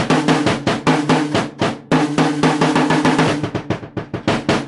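Drum kit played in a fast groove, many strikes a second with a brief break about two seconds in. The bass drum is muffled by a towel placed between its heads, so the kick is dead, with no ringing to it.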